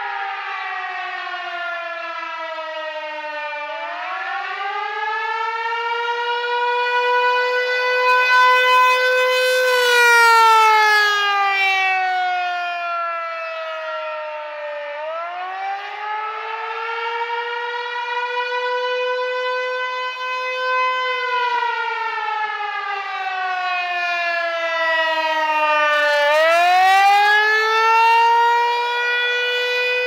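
American Signal T-128 rotating electronic siren sounding the slow wail of the attack signal. Its pitch glides down, then up and holds, about every eleven seconds. It swells louder twice as the turning horn sweeps toward the microphone.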